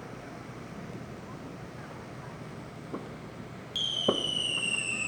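Fireworks going off: a faint pop about three seconds in, then just before four seconds a whistling firework starts with a sudden high whistle that slowly falls in pitch, with another pop under it.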